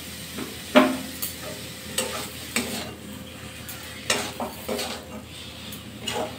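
Flat metal spatula scraping and pushing thick taro-leaf paste around a metal wok in several irregular strokes, over a faint sizzle of frying. The paste is being cooked down until it gathers into a single lump.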